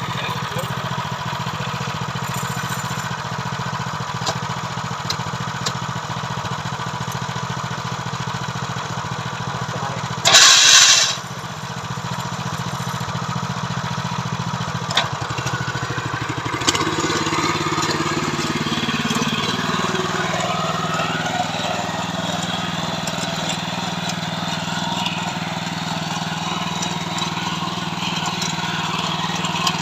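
Small engine of a KB-365 mini tiller running steadily. About ten seconds in comes a short, loud rushing noise, the loudest thing here. From about sixteen seconds in the engine's note shifts and stays changed.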